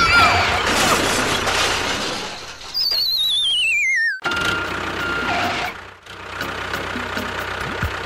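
Cartoon-style sound effects for a toy tractor hitting a toy train: a loud clattering crash with squealing tones at the start, then a falling, warbling whistle lasting about a second and a half that cuts off sharply, followed by a steady high tone and more clatter.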